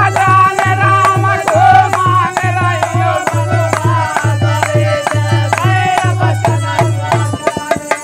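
Men singing a Hindi folk bhajan together, accompanied by a dholak beating a steady rhythm with sharp hand-percussion clicks. Near the end the drum stops and the song tapers off.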